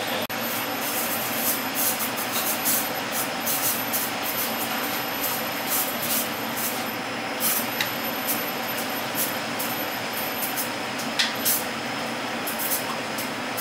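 Steady rushing background noise of a commercial kitchen, with scattered short high ticks and rubbing sounds.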